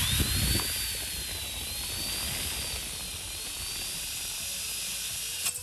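Electric drill driving an Omi carbide-tipped bimetal hole cutter (BW) through 2 mm stainless steel plate, fed only by the drill's own weight: a steady high-pitched cutting hiss with a whine that wavers up and down. It stops abruptly near the end.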